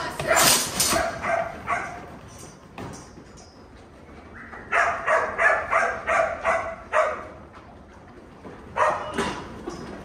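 A dog barking in quick runs of short barks, about three or four a second, in three bursts with pauses between.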